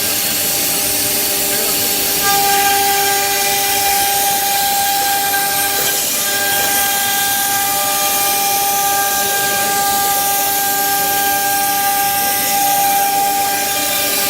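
SUDIAO S5 CNC nesting router running, its spindle giving a steady high whine over a loud hiss.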